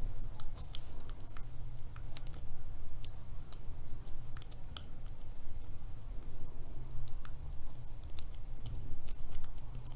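Lock pick and tension wrench working inside a Master Lock Pro Series 7050 padlock: irregular small metallic clicks and scrapes as the pins are set, over a low rumble from handling the lock.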